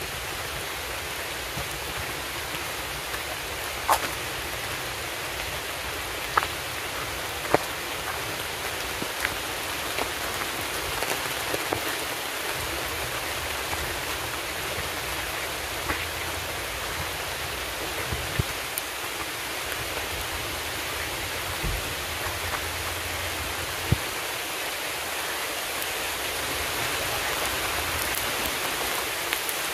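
Steady rain falling, with occasional sharp taps from larger drops scattered irregularly through it.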